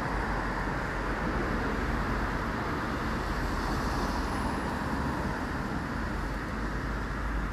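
Steady road traffic noise: an even rumble and hiss with no separate events.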